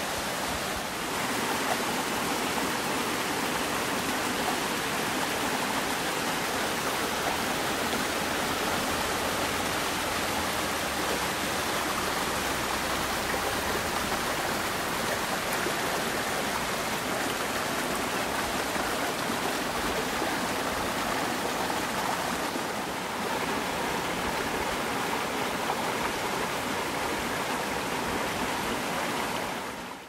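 Steady, even rush of a small two-tier waterfall, about 7 m high, pouring into its wide plunge pool; it cuts off abruptly at the end.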